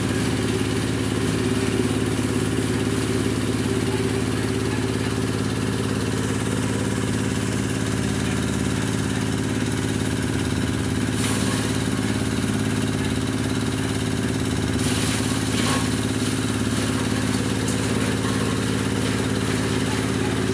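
Engine-driven grass chopper (chaff cutter) running steadily under load as cut grass is fed into its hopper, with an even engine drone. A few brief knocks or scrapes come about halfway through.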